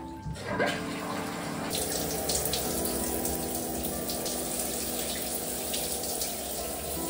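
Shower running: a steady spray of water that starts about half a second in.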